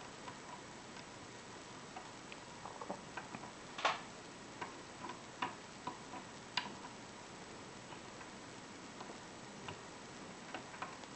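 Lock picking in a five-pin Corbin euro cylinder: a pick hook lifting pin tumblers against tension gives faint, irregular small clicks and ticks. Two stronger clicks come about four and six and a half seconds in, with a quieter gap after them.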